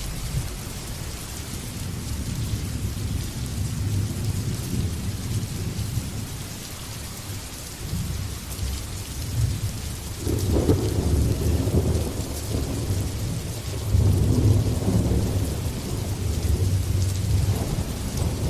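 Steady rain hissing, with thunder rumbling low beneath it. The rumble swells louder about halfway through and again a few seconds later.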